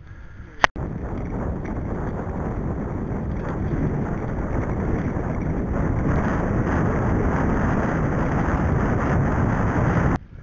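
Loud wind buffeting on a bike-mounted camera's microphone, mixed with tyre rumble as the bike rides fast down a gravel and dirt track. It starts with a sharp click about a second in and cuts off suddenly near the end.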